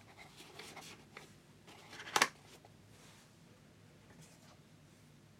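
Soft rustling and scraping of packaging as a foam insert is lifted out of a cardboard box, with one sharp knock about two seconds in.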